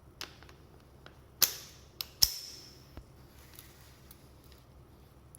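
Five sharp clicks and knocks, the loudest about a second and a half in and just after two seconds, each with a short ring: parts of a Makita TC300D battery crimping tool being handled while its cutting accessory is changed over.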